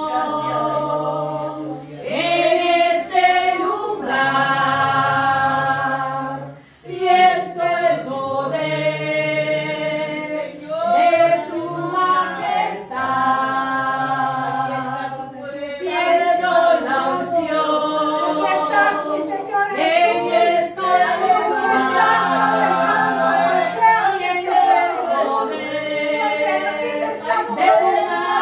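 A small group of mostly women's voices singing a worship song together without accompaniment, in held phrases with a short break about seven seconds in.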